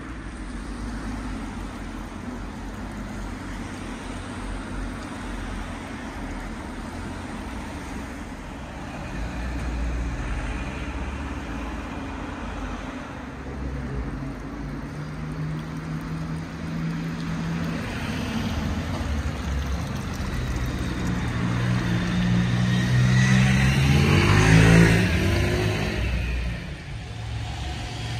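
Street traffic: a steady low rumble of passing road vehicles. A motor vehicle's engine grows louder from about halfway through, its pitch rising as it passes close about 24 seconds in, the loudest moment, and then fades.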